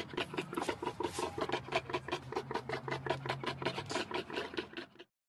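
Warthog grunting in a fast, even run of short grunts, several a second, that cuts off about five seconds in.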